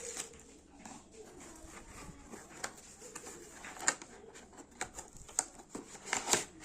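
Scattered clicks and light rustling of a small earbuds box and its plastic packaging being handled, the sharpest clicks about four seconds in and near the end.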